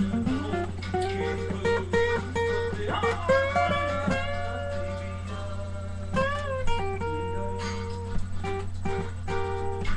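Acoustic guitar played by hand, notes picked one after another in a loose melodic run, over a steady low hum.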